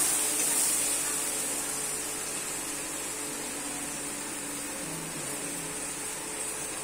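Food sizzling as it fries in a steel kadai on a gas stove: a steady hiss that is loudest at first and eases off over the first two seconds, then holds.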